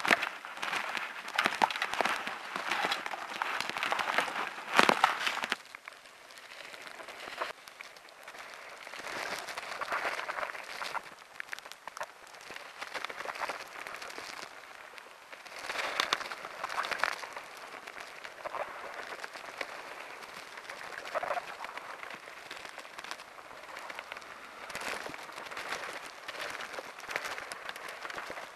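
Footsteps crunching on a gravel trackbed, loud with many short crunches for the first five seconds or so. After that comes a quieter, uneven crackling and rustling.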